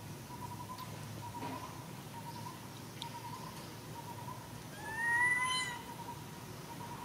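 A macaque gives a single high-pitched call about five seconds in, lasting about a second, rising slightly and then falling. A faint steady pulsing tone runs in the background.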